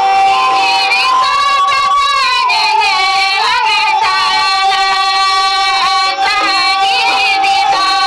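A high voice singing a wavering, ornamented melody over music, with one steady note held underneath throughout.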